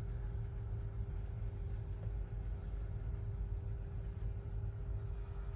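Combine harvester running while cutting wheat, heard from inside the cab: a steady low rumble with a constant mid-pitched hum.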